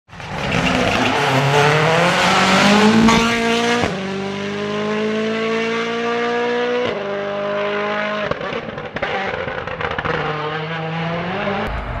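Rally car engine accelerating hard, its pitch climbing through the gears with quick, abrupt upshifts about four, seven and eight seconds in.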